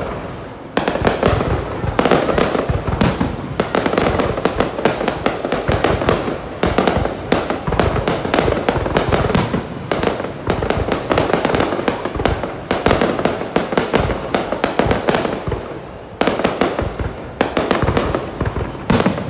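Fireworks display: a dense, continuous barrage of bangs and crackles, with brief lulls about half a second in and again around 16 seconds.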